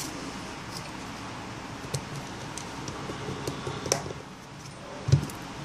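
Small scattered clicks and taps of a precision screwdriver and the plastic parts of an LG Nexus 5 being handled while its screws are put back in, with a sharper click about four seconds in and a dull knock a little after five seconds.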